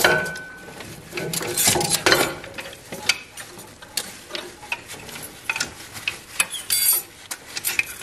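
Turbocharger being wiggled loose and lifted out of a diesel engine bay by hand, its metal housing clinking, knocking and scraping against nearby parts in irregular clanks. It opens with one short metallic ring.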